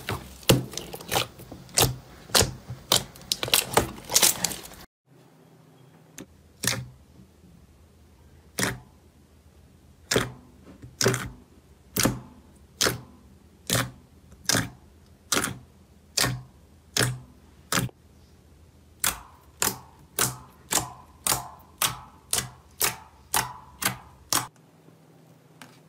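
Hands squishing and poking slime, making sharp clicking pops as the slime is pressed: several a second at first, then after a cut single pops about once a second from fingers pressing glossy slime, quickening to about two a second near the end.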